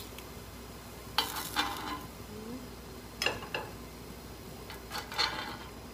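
Metal spoon scraping and clinking against a cast-iron bánh khọt pan three times as fried cakes are pried out of their wells. A faint steady sizzle of frying runs underneath.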